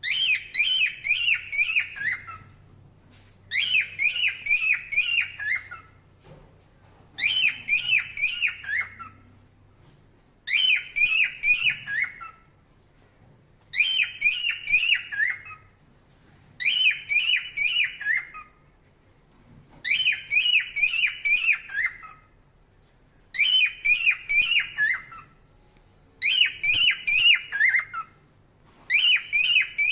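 Parrot chirping in short bursts of quick, high whistled notes, each burst about two seconds long and repeated about every three seconds, nine times over.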